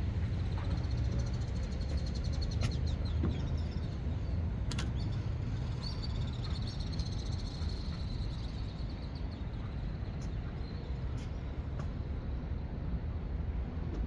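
Birds calling over a steady low rumble: a rapid, high chattering trill near the start and again through the middle, with a few sharp clicks.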